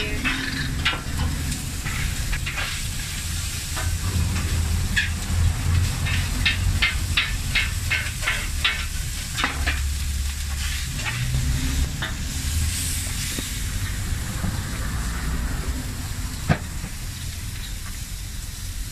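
Metal spatula chopping and scraping taco meat on a flat steel griddle, a series of sharp clacks over a steady sizzle, with a run of about three clacks a second midway and one sharp knock near the end. A low steady rumble sits underneath.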